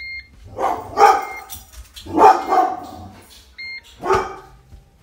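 A dog barking repeatedly, with a few short high electronic beeps in between, from the bread maker, whose timer has reached 0:00 at the end of its cycle.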